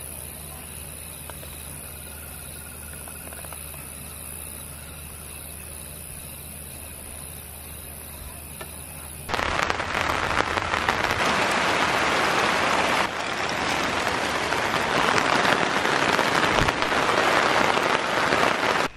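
Heavy rain pouring down onto grass and a camp tarp. It starts abruptly about nine seconds in, after a quiet, steady night background with a high hiss.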